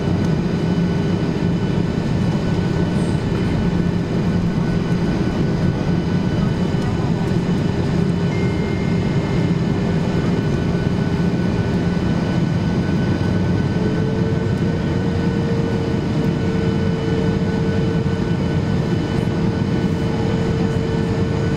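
Steady cabin noise of a Boeing 737-800 in flight, heard from inside the cabin: a rush of air with the drone of its CFM56 engines. A tone in the engine hum rises slightly about thirteen seconds in, as the engine speed changes on descent.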